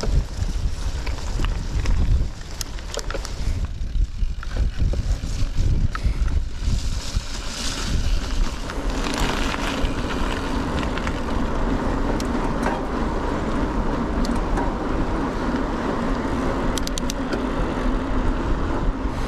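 Mountain bike riding. Wind buffets the microphone and the bike rattles and clicks over a rough grass track. About nine seconds in, this gives way to a steady hum of knobbly tyres rolling on tarmac.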